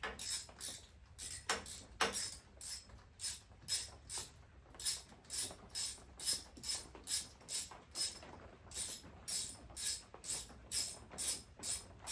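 Hand ratchet on a 3/8 socket backing out a small bolt on a V-twin motorcycle engine's top end: quick, even back-and-forth strokes, each a short burst of pawl clicks, about two or three a second.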